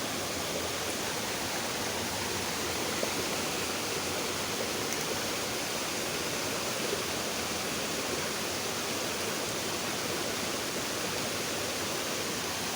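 Shallow stream water rushing steadily.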